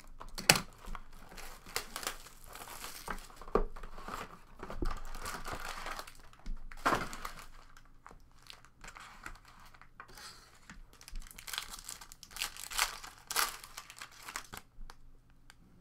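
Foil-wrapped trading card packs being handled and torn open: irregular crinkling and crackling of the foil, with a few sharp rips.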